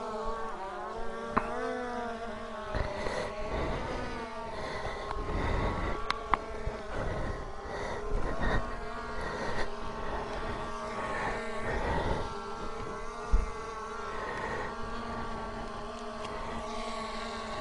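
Skydio 2 quadcopter drone hovering, its propellers whining at a steady, slightly wavering pitch, with irregular low rumbles underneath.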